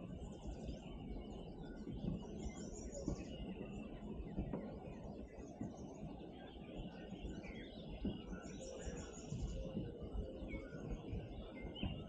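Several songbirds singing and calling, with short high chirps and trills that are busiest near the start and again about eight seconds in, over a steady low rumble.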